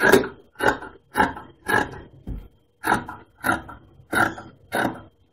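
Large tailor's shears cutting through trouser cloth along a chalk line: a steady run of snips, about two a second, with a short break midway.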